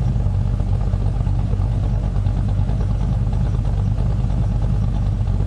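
Holden R8 Clubsport's LS1 5.7-litre V8, fitted with a new Comp Cams camshaft, idling steadily at a raised warm-up idle after its first start, with the new cam plainly audible in the idle.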